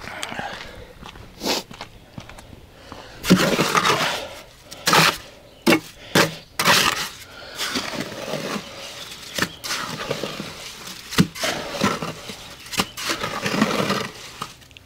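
Masonry work with a steel trowel: irregular scrapes of the trowel working mortar against concrete blocks, with a few sharp knocks.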